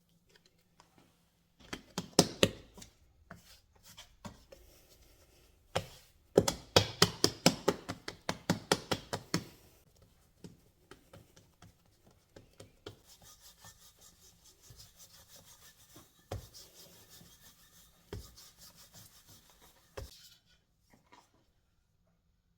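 Knife chopping on a cutting board: a short run of quick strokes, then a longer run at about five strokes a second, followed by quieter scattered taps and rubbing.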